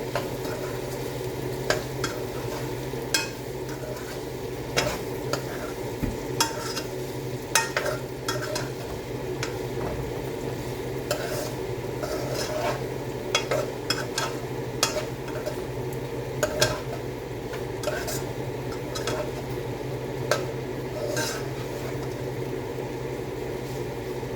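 Tomatoes and luncheon meat being stirred in a frying pan: a utensil scraping and clicking irregularly against the pan over a steady sizzle, with a low hum underneath.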